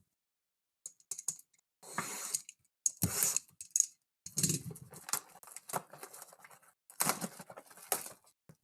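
Trading cards and pack wrappers being handled: an irregular run of clicks and short rustles as cards are slid and flipped through, with brief gaps between.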